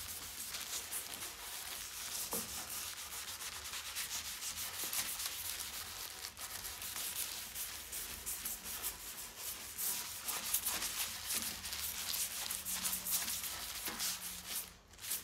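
A plastic-gloved hand wiping Ott varnish into bare softwood slats, rubbing back and forth in quick, scratchy strokes.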